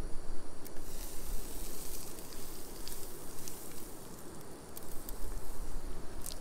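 Butter sizzling as it melts in a hot frying pan: a steady hiss with scattered light crackles.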